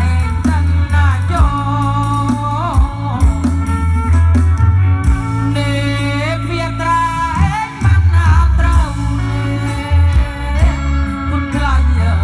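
A song with a lead vocal and guitar over heavy bass, played loud through a large PA sound system being sound-tested.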